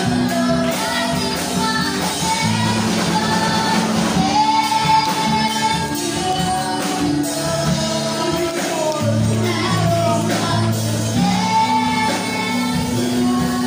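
Children's choir singing an upbeat gospel song into microphones, over instrumental accompaniment with a bass line and a steady beat.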